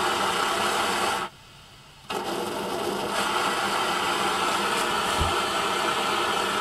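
Optimus 8R petrol pressure stove's burner running with a steady roar. The sound cuts out briefly about a second in, then carries on unchanged.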